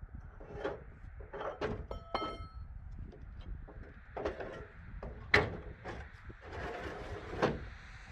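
Irregular knocks and clanks, with a short metallic ring about two seconds in and two sharper bangs, the loudest about five seconds in and another near the end.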